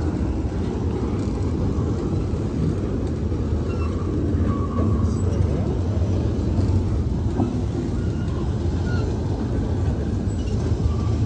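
Norfolk Southern double-stack intermodal freight train rolling past, its loaded well cars' wheels running on the rails in a steady low rumble.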